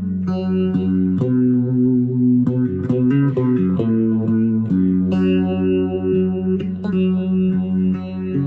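Electric cigar box guitar with an oak neck and mini humbucker pickup, played amplified: picked notes ringing over a held low note, with a few notes gliding in pitch about three seconds in.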